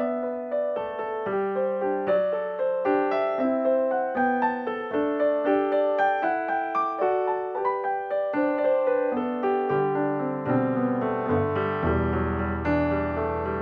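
Background piano music: a steady run of single notes, with deeper bass notes joining in about ten seconds in.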